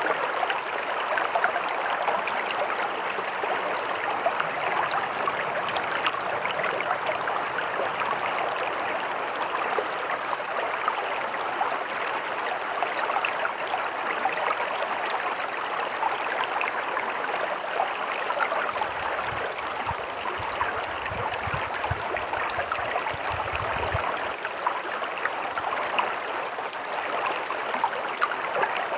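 A stream of running water flowing over stones, giving a steady, dense babbling and trickling. A faint low rumble sits under it for several seconds past the middle.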